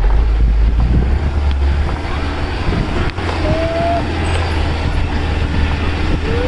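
Camper van driving along a sandy dirt road: a steady low rumble of engine and road noise with wind on the microphone.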